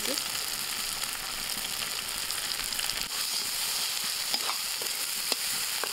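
Onions and garlic paste frying in mustard oil in an aluminium kadai, sizzling steadily as chopped green chillies are tipped in and stirred through. A few light clicks of the metal spatula against the pan near the end.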